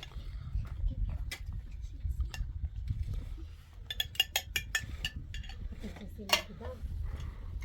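Sharp clinks and knocks of hard objects against each other, with a quick run of ringing clinks about four seconds in, over a steady low rumble.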